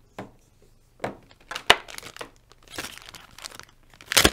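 Packaging being handled, crinkling and rustling, with a few sharp clicks and knocks from cables and accessories being picked up. A louder burst of crinkling comes near the end.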